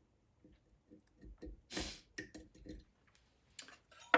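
Light metal clicks and scrapes of a thin wire lock pick working the pins inside a lock's serpentine keyway: a scatter of small ticks, with a louder scrape a little under two seconds in.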